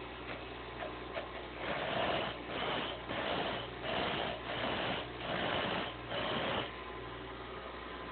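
A grinder running with a steady hum, with six short passes of a steel lock pick blank pressed against it, about one every second. The passes start about one and a half seconds in and stop with two seconds to go.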